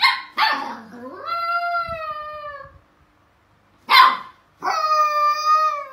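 Finnish spitz puppy giving a sharp yap and then a long, wavering howl that drops in pitch at the end; about four seconds in it yaps again and starts a second long howl.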